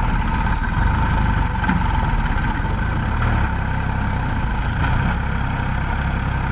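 JCB backhoe loader's diesel engine running steadily at a low, even speed, with a faint steady whine above it.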